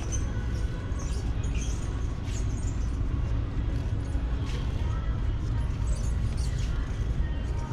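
Metal shopping cart rolling along a concrete store floor: a steady low rumble from the wheels with light rattling clicks from the basket.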